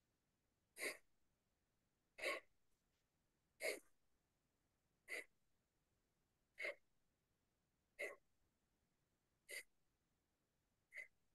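Short, sharp breaths, about one every second and a half, eight in all, paced by a seated spinal flex in Kundalini yoga: breath drawn in as the spine flexes forward and let out as it rounds back.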